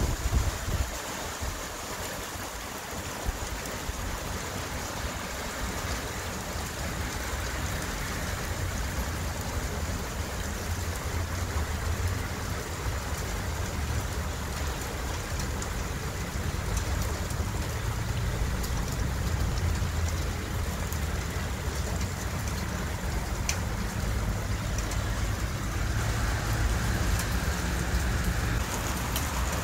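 Heavy rain falling steadily on tree leaves and a wet street, with a low rumble underneath.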